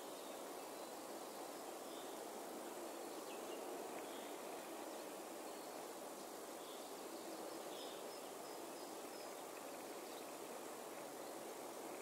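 Steady, low-level outdoor background noise, with a few faint, short, high bird chirps scattered through it and a short string of them in the second half.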